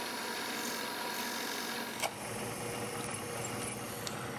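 Bridgeport milling machine spindle running steadily while a drill bit bores a through hole in a polycarbonate sheet, with one short click about two seconds in.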